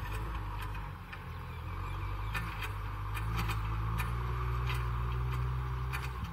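Kubota M6040SU tractor's diesel engine running steadily under load while pulling a disc harrow through dry soil, with scattered sharp clicks over it.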